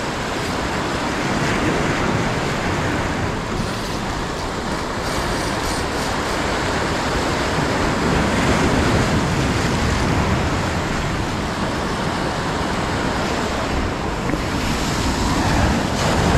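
Ocean surf breaking and washing over jetty rocks, a steady rushing wash with a low rumble of wind on the microphone.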